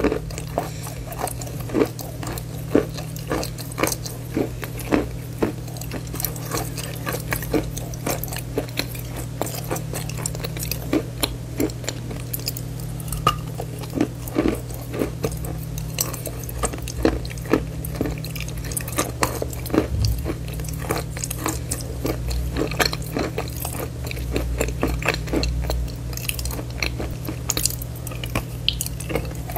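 Close-miked chewing and biting of a wet, brown-coated bar of chalk, with frequent crisp crunches and clicks over a steady low hum.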